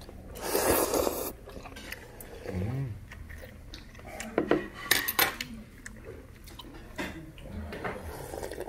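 A metal spoon clinking against ceramic bowls, several sharp clinks scattered through, with a second-long rush of noise near the start.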